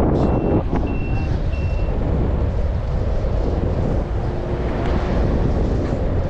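Steady wind and road rumble on the microphone of a moving bicycle, with a repeated high electronic warning beep, about one every two-thirds of a second, that stops about two seconds in.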